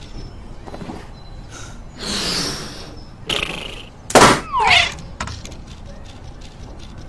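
Cartoon sound effects: a swell of noise, a short burst, then a loud hit about four seconds in, followed by a few quick falling whistle-like slides, with scattered clicks between.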